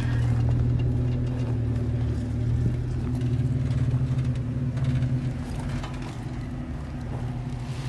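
Off-road 4x4 engine running steadily at low revs while crawling over rock, easing off slightly about five seconds in.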